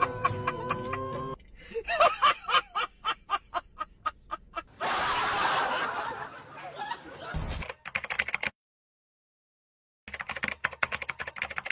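Music cuts off abruptly, followed by a person snickering in quick, rapid bursts. There is a short burst of hissing noise in the middle, and after a gap of dead silence the laughter starts again near the end.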